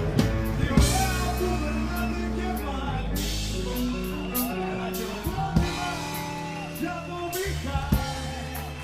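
A song with singing, drums and bass.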